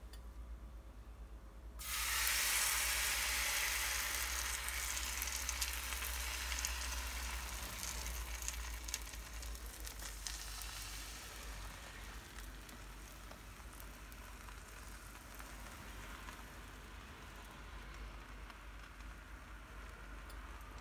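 Thin cauliflower-and-chickpea paratha batter sizzling in a hot oiled non-stick frying pan. The sizzle starts suddenly about two seconds in as the batter goes into the pan, is loudest at first, then slowly dies down.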